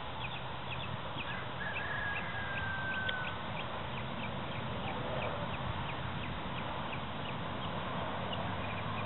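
Outdoor ambience of birds calling: many short, high chirps scattered throughout, and one long, slightly falling whistled note about two seconds in, over a steady background hiss.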